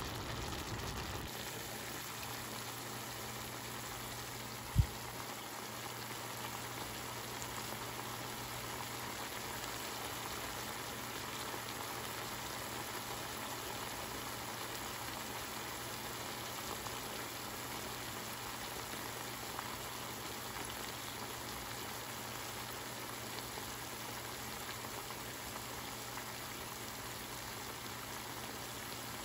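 Turkey necks and chopped vegetables sizzling steadily in hot oil in a cast iron skillet as they sear, with a single dull bump about five seconds in.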